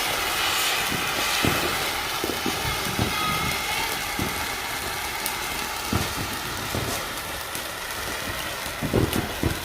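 Consumer ground firework burning with a steady hiss, with scattered small pops and thumps, a cluster of them near the end.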